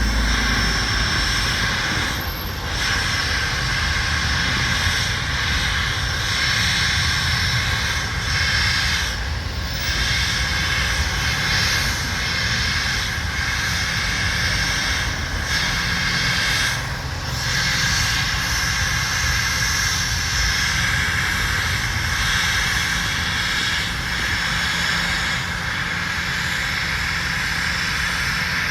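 Jet airliner engines running with a steady high whine over a low rumble.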